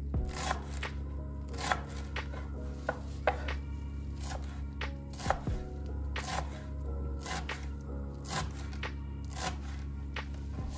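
Knife chopping food on a cutting board in sharp, uneven strikes, about one or two a second, over soft background music.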